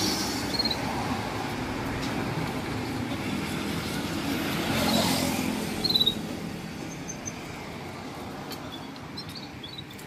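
A road vehicle passing by, its noise building to a peak about halfway through and then fading away. A caged bird gives a few short, high chirps.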